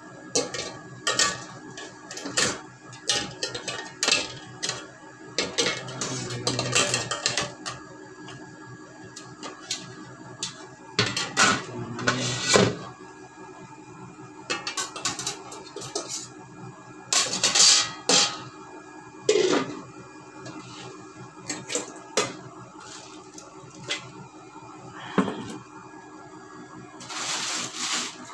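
Irregular metal clattering and clinking as a square copper-coloured pan's stainless wire fry basket and perforated steamer tray are handled and set into the pan. Near the end, a plastic shipping pouch rustles.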